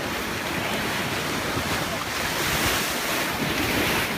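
Sea surf washing in steadily, with wind on the microphone; the rush of the waves swells somewhat in the second half.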